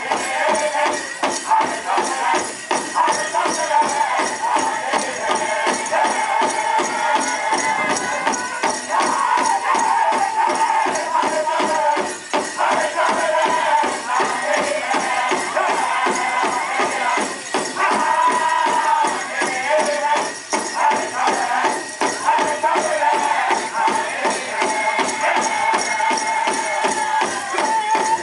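Powwow drum group singing a grass dance song in high voices over a steady, even beat on the big drum.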